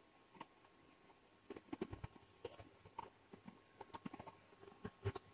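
Faint, scattered soft taps from hands rolling small balls of dough and setting them down on a steel plate.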